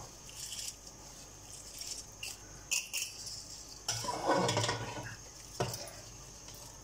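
A spoon scraping and clinking against a steel bowl as soaked rice is tipped out of it into boiling water, with scattered clinks and one louder, longer scrape about four seconds in.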